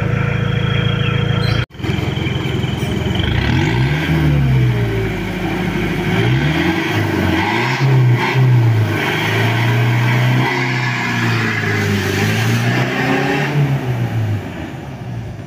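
Mitsubishi L200 pickup's 4D56 turbo-diesel engine, idling steadily, then after a cut revving up and easing off several times as the truck accelerates away through the gears, growing fainter near the end.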